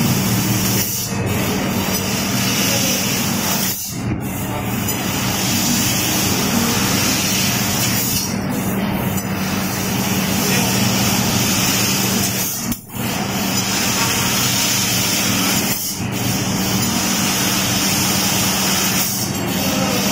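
Fiber laser cutting machine cutting sheet steel: a steady loud hiss from the cutting head, with a low hum underneath. The hiss breaks off briefly every few seconds.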